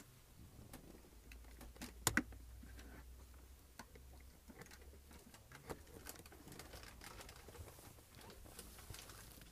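Quiet interior of a passenger railcar: a faint low hum with scattered light clicks and creaks, and two sharp clicks in quick succession about two seconds in.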